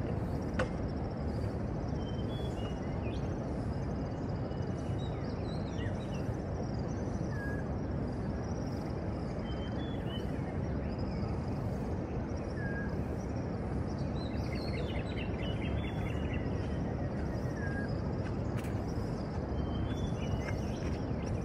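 Steady low rumble of city traffic, with birds chirping over it: a short call repeated about every five seconds, and a quick trill about two-thirds of the way through.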